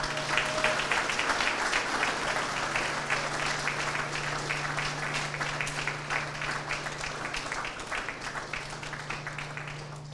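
Audience applauding: dense clapping that starts at once, slowly thins out and dies away near the end.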